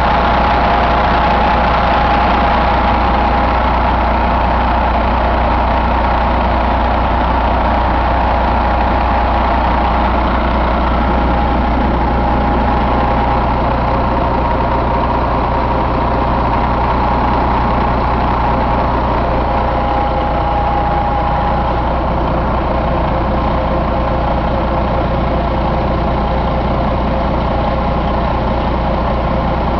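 Detroit Diesel Series 60 12.7-litre inline-six turbo-diesel engine running steadily at idle.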